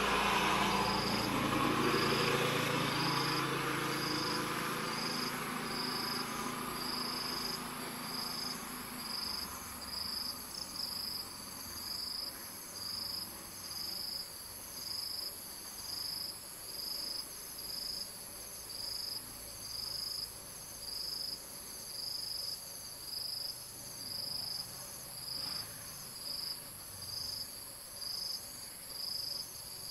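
Insects calling: a high chirp that repeats steadily about once every second and a quarter, over a continuous thin high-pitched buzz. A broad rumbling noise is loudest at the start and fades away over the first several seconds.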